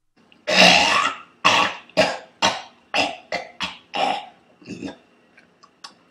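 A puppeteer's voice making a run of rough, cough-like grunts for a puppet, about nine in quick succession, getting weaker towards the end.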